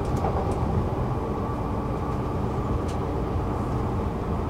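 Stockholm metro (tunnelbana) train running, heard from inside the car: a steady low rumble of wheels and motors on the track, with a few faint high clicks.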